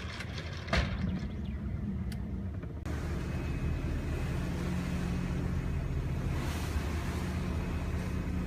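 Twin Detroit Diesel Series 60 inline-six marine diesels running at wide open throttle on a sea trial, a steady low drone heard from the pilothouse from about three seconds in, running normally on their new exhaust risers. Before that, a lower engine hum with a single sharp knock about a second in.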